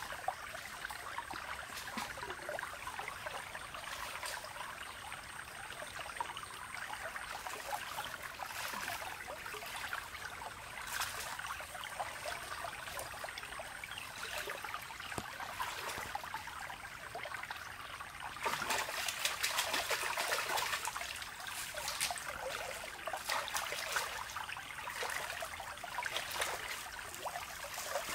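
Shallow stream water trickling, with splashing and sloshing as a person wades and gropes in the water by hand; the splashing grows louder for a couple of seconds about two-thirds of the way through. A faint steady high tone runs through roughly the first quarter.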